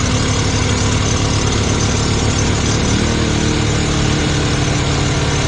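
Briggs & Stratton PowerSmart Series 2200-watt inverter generator's small engine running steadily just after its first-ever start, still on full choke. Its note shifts about three seconds in.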